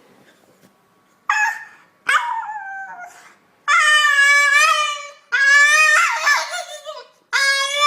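A dog howling: two short yelps, the second falling in pitch, then long drawn-out howls, one after another.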